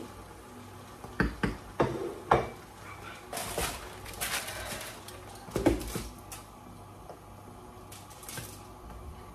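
Dishes and cutlery clinking: a quick run of sharp knocks and clinks in the first couple of seconds, then another clink about halfway through.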